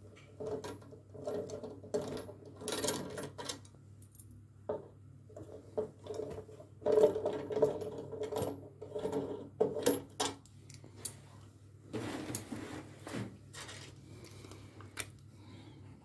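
Ratcheting socket tool clicking in quick runs as the bolts holding an LG direct-drive washing machine's motor stator are unscrewed. A brief rustle of handling comes near the end.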